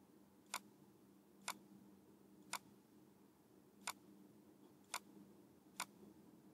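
Computer mouse button clicked six times, sharp single clicks about once a second, each click selecting another machining chain. A faint steady hum lies underneath.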